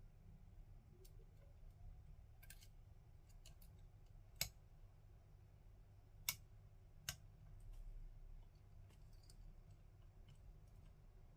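Lock picks working inside an ASSA Desmo high-security lock: faint scattered ticks, then three sharp small metal clicks around the middle, against near silence.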